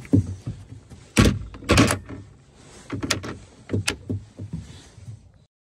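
Plastic dog travel kennel being closed: its grated plastic door is swung shut and latched, with a string of hollow plastic clacks and rattles. The loudest two come a little after one second and just under two seconds in. The sound stops abruptly just before the end.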